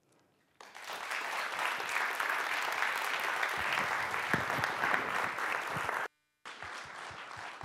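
Audience applause, starting about half a second in after a brief quiet. Near the end the sound cuts out for a moment, then the clapping carries on a little softer.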